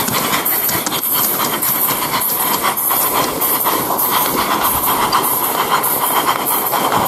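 Regner live-steam garden-railway model of the Harz 2-10-2T locomotive 99 222 running, its steam exhaust chuffing in a steady rhythm over a constant hiss, with wheels clicking on the track.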